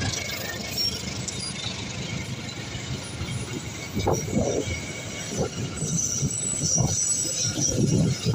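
Indonesian passenger train coaches rolling past, their wheels rumbling steadily on the rails. From about halfway a run of clacks sets in, roughly one or two a second, as the wheels pass over rail joints.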